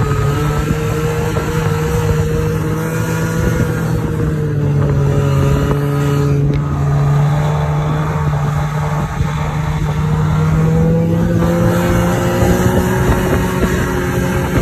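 Snowmobile engine running steadily under way, heard from the rider's seat. Its pitch dips slightly midway and climbs again near the end.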